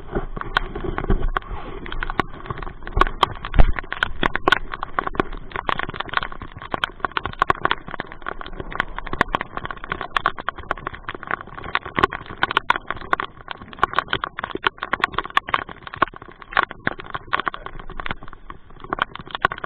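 Raindrops hitting a plastic cover, a dense stream of irregular sharp taps, with a louder low thump about three and a half seconds in.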